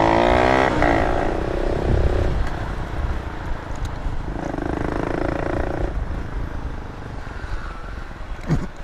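Small 125cc motorcycle engine running under way, its note changing pitch as the revs rise and fall, over a steady low rumble.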